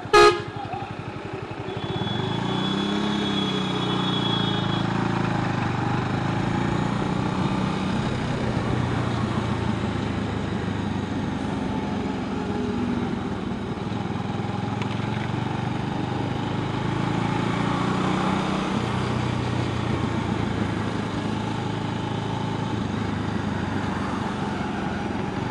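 Motorcycle engine running while riding along a highway, with steady road and wind noise. About two seconds in, the engine picks up with a brief rise in pitch. A sharp click comes right at the start.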